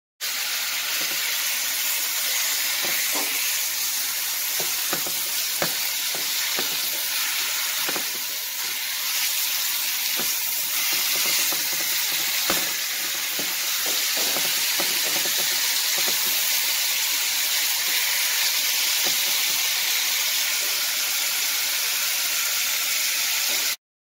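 Bacon sizzling in a frying pan: a steady hiss with scattered crackles and pops.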